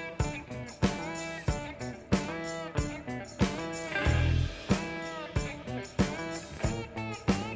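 Background music: guitar playing bent notes over a steady beat.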